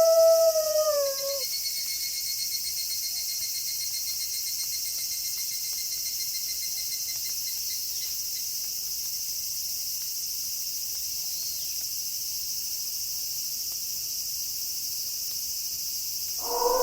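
A wolf's howl falls in pitch and ends about a second in, leaving a steady chorus of crickets with a pulsing trill. Another wolf howl begins near the end.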